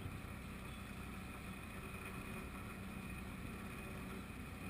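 A sailboat under way under engine, its motor running with a steady low drone mixed with the rush of wind and water.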